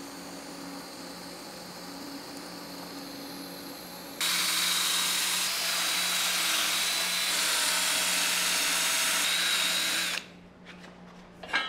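A steady low hum during TIG welding for about four seconds. Then a Ryobi 18V cordless drill spinning an abrasive disc against a steel tube, a loud steady grinding with a thin high whine, which stops abruptly about six seconds later.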